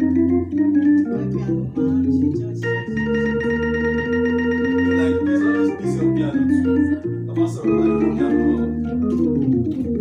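Organ voice on a Yamaha electronic keyboard, played for a sound check as a run of held chords over a low bass line. The chords change roughly every half second to a second.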